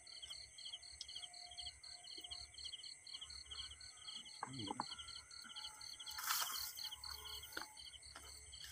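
Insects calling in the night-time countryside: a cricket-like chirp repeats evenly about four to five times a second over a steady high buzz. A short rustle comes about six seconds in.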